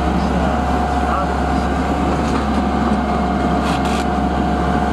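Steady rushing noise of a sailboat under way at sea, holding an even level throughout, with a constant thin whine over it.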